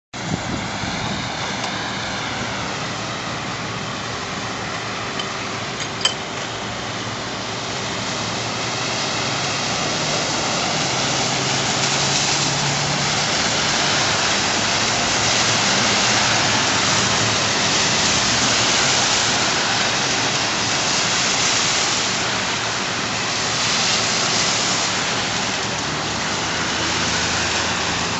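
Traffic on a flooded street: a steady hiss of tyres through standing water, swelling several times as vehicles pass, with one short click about six seconds in.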